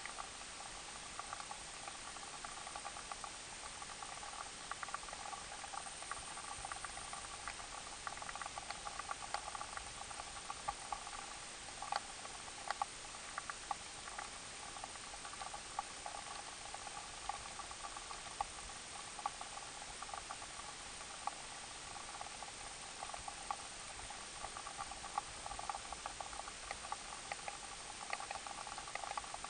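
Underwater sound of a shallow stream over gravel: a steady rush of current with many small, irregular clicks and ticks.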